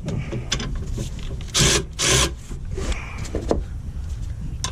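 Straps holding a truck gearbox being taken off: two loud, short pulls of strap webbing about a second and a half and two seconds in, with light knocks and clicks around them.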